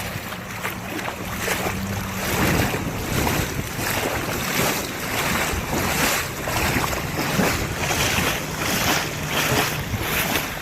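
Wind rushing over the microphone and water splashing as a rescue boat moves through floodwater, swelling and easing about one and a half times a second. A low steady motor hum runs under it for the first two seconds or so.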